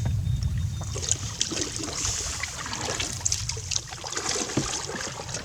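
Canoe paddles splashing and water trickling, with a steady low rumble of wind on the microphone.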